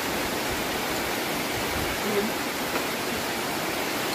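Heavy rain falling steadily, an even hiss.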